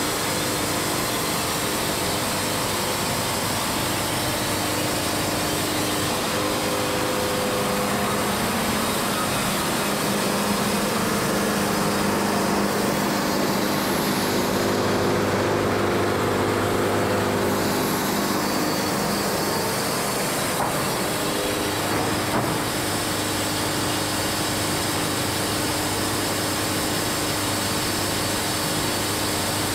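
Wood-Mizer LT70 band sawmill running steadily, its band blade sawing along a Kentucky coffee tree log as the saw head travels the length of the cut.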